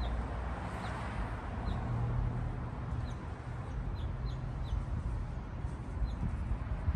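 Small bird chirping repeatedly, short high chirps coming every half second or so over a steady low hum.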